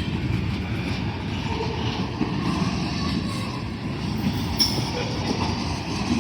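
ALCO RS-11 diesel locomotive moving its train, a steady low rumble of engine and wheels on the rails.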